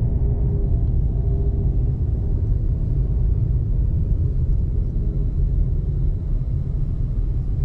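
Steady low rumble of a vehicle on the move, engine and road noise heard from on board.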